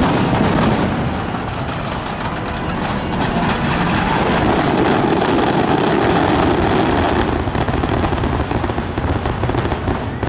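A rapid barrage of aerial firework shells bursting, a dense continuous volley of booms and crackle that eases slightly near the end.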